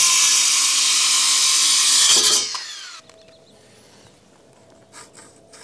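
Cordless circular saw cutting through a wooden 2x4. The cut ends a little over two seconds in, and the blade then spins down with a falling whine.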